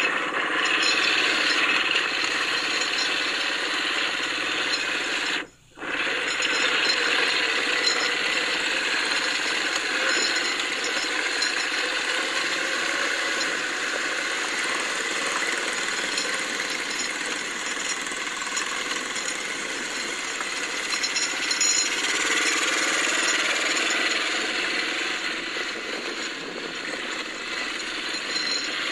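ATV running as it is ridden over a dirt track, a steady mechanical noise that cuts out briefly about five and a half seconds in.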